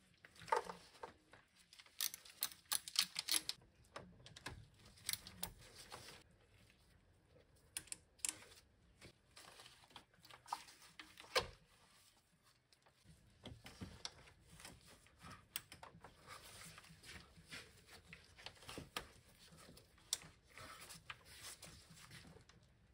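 Hand ratchet clicking in quick runs, with metal tools clinking on engine parts as bolts are worked loose. There is a single sharper knock about halfway through.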